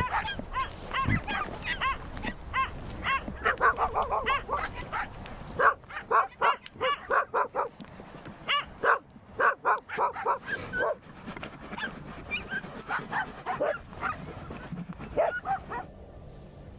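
A dog barking and yelping in quick runs of short, high calls, falling silent near the end.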